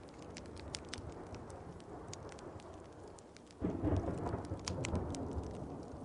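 Steady rain with wood-fire crackles throughout, and a roll of thunder that breaks in suddenly about halfway through as the loudest sound, rumbling low and fading over a couple of seconds.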